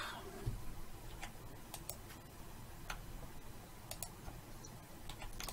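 Faint, irregularly spaced clicks of a computer mouse and keyboard keys, about eight to ten sharp ticks.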